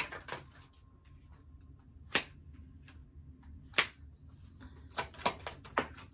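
Tarot cards being handled and laid on a table: about half a dozen sharp card snaps and taps, spaced unevenly, the loudest two about two and four seconds in.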